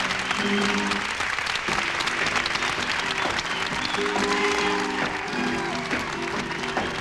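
Music with held notes, over a dense, steady patter of applause.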